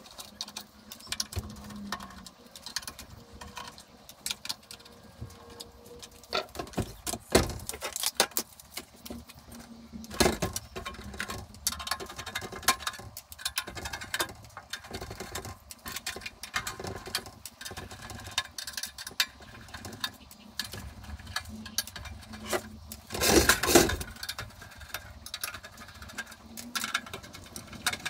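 Irregular clicks, rattles and knocks of screws and a metal cover being taken off a Clarke PC40 phase converter, with a louder clatter about three-quarters of the way through.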